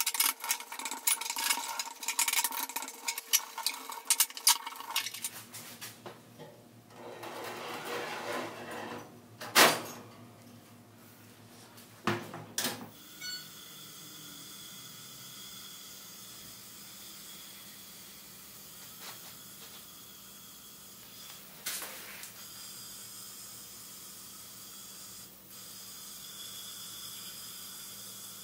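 Light metallic clinking and ticking of small steel parts for the first few seconds, with a few louder knocks around the middle. Then a steady hiss of a powder-coating spray gun blowing powder over the hanging parts, holding even to the end.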